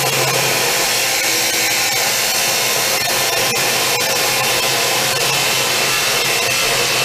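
Wood miter chop saw fitted with a metal-cutting blade, running at full speed and cutting through rectangular steel tubing: a steady, loud grinding whine of blade on steel.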